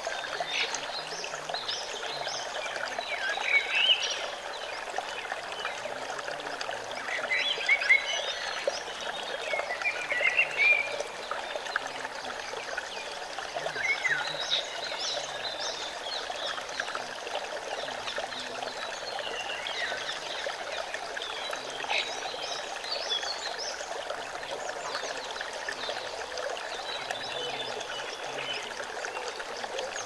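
Shallow forest stream running and splashing over rocks, a steady rush of water. Short high chirping calls are scattered through it, the loudest moments in the sound.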